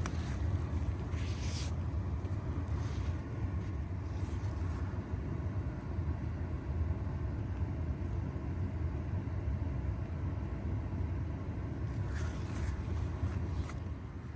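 Steady low rumble of a car, heard from inside the cabin, with a few faint clicks over it.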